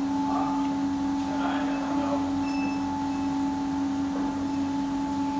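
Induction melting furnace of a granulating machine and its water chiller running at full power while the metal charge melts. They make a steady hum with one constant low tone and a fainter higher one.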